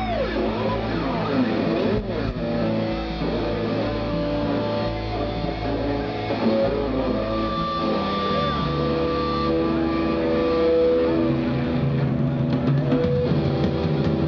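Live electric guitars and bass guitar playing held, sustained notes through a stage PA, with sliding guitar notes in the first couple of seconds.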